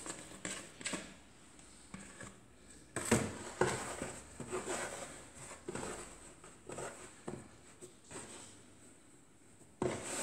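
Hands working soft pizza dough on a wooden board during a round of stretch-and-folds: irregular soft pats, slaps and rubbing of dough against the floured wood. A plastic bowl is lifted off the dough and set down, giving a couple of louder knocks about three seconds in.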